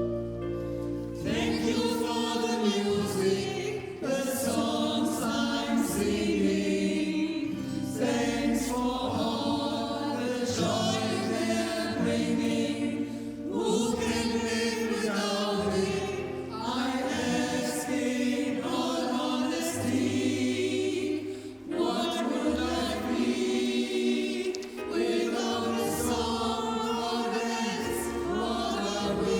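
Choir singing, the voices coming in about a second in over steady, sustained low notes.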